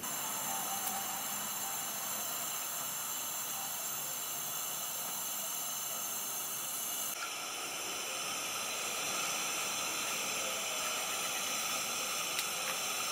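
1965 Sears pressure lantern (made by Coleman) hissing steadily as it burns, its tone shifting slightly about seven seconds in.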